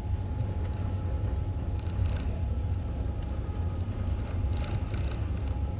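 Passenger train running on the rails, heard from inside the carriage: a steady low rumble with a faint steady hum above it and a few light rattling ticks about two seconds in and again near the end.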